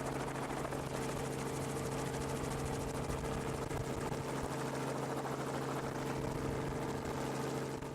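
Helicopter running steadily overhead: a constant engine drone with a fast rotor flutter.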